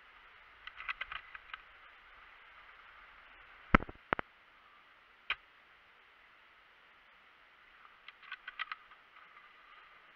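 Airsoft gunfire clicks and the knocks of BB hits: a short burst of rapid clicks, then a few single sharp cracks, the loudest about four seconds in, and another rapid burst near the end, over a steady hiss.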